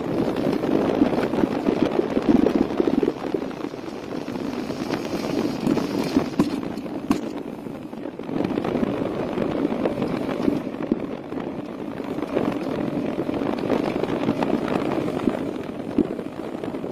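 Motorcycle engine running under way, mixed with heavy wind buffeting on the phone's microphone that gives a continuous crackling rumble.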